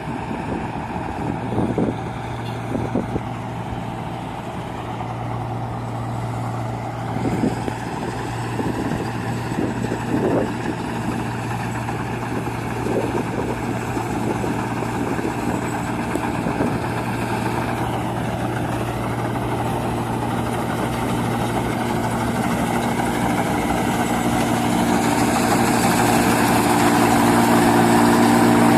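New Holland Clayson 8060 combine harvester running steadily, with a few knocks in the first half. It grows gradually louder over the last several seconds as more engine tones come in.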